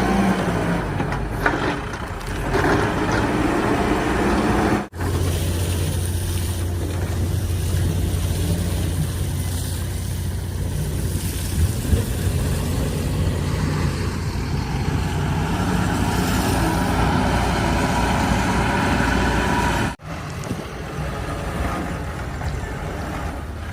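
Diesel engine of heavy earthmoving machinery running under load, its pitch sinking and then rising partway through as it works. The sound breaks off abruptly twice, about five seconds in and a few seconds before the end, where clips are joined.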